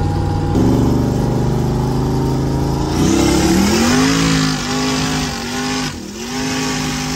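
Chevrolet Camaro drag car engine running loudly at a steady note, then revving hard from about three seconds in under acceleration, its pitch rising and dropping back twice as it shifts up through the gears.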